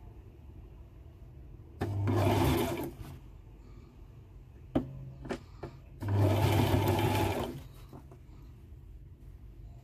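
Brother LX3817G sewing machine stitching a seam in two short bursts, about two seconds in and again about six seconds in, with a few light clicks between the bursts.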